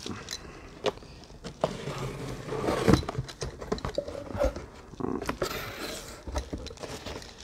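Cardboard shipping box being opened and an inner cardboard mailing box lifted out: irregular scraping, rustling and knocks of cardboard, loudest about three seconds in.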